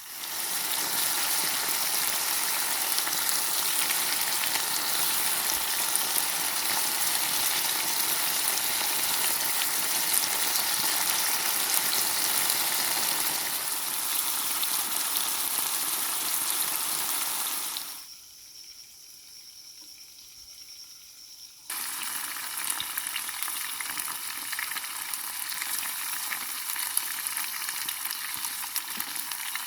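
Food frying in a pan, a dense steady sizzle. It drops away abruptly for a few seconds past the middle, then the sizzle resumes.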